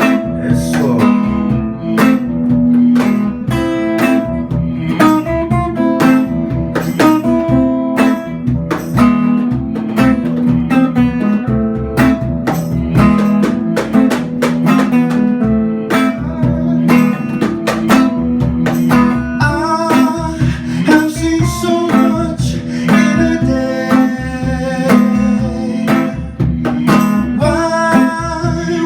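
Live band playing the instrumental opening of a song: acoustic guitar strumming over a steady beat, with a brighter melodic line joining about two-thirds of the way through.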